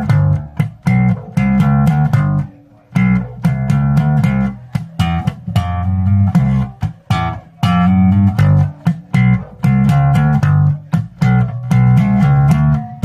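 Vester vintage Precision Bass with a plywood body, played in a fast line of plucked notes.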